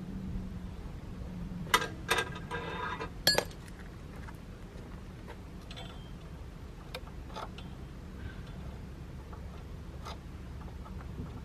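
Sharp metal clinks and a short clinking rattle from hand work on a grapple saw head, the loudest about three seconds in, then a few lighter clicks, over a steady low hum.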